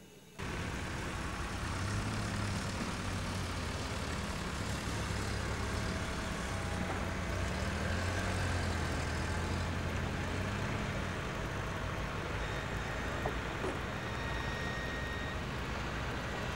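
A motor vehicle's engine running steadily under a constant rush of road and wind noise, as when riding in a vehicle along a dirt track. It starts abruptly about half a second in.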